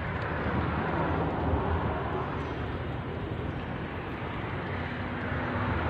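Steady low engine rumble, swelling and easing a little, with a faint hum beneath it.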